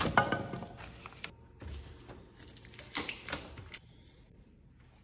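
Plastic shrink wrap crinkling and rustling in irregular bursts as it is pulled off a boxed dishwasher drawer's foam packaging.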